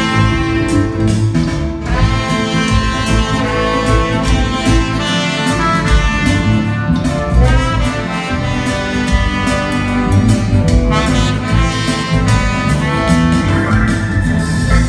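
Live band playing an instrumental passage: saxophone and trumpet playing the melody together over drum kit, bass and keyboard, with a steady beat.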